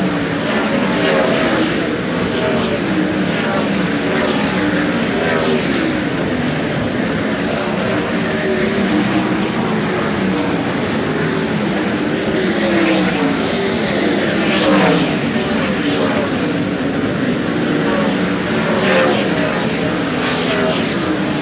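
A field of 410 sprint cars' V8 engines racing around a dirt oval, several engines at once, their pitch rising and falling as the cars pass and go down into and out of the turns.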